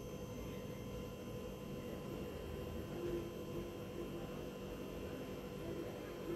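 Faint steady hum with a low hiss from the gas stove and the pan of diced potatoes cooking on it.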